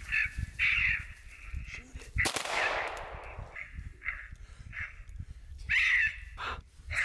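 Harsh cawing calls repeating every half second to a second. One sharp, loud crack comes a little over two seconds in and rings out for about a second.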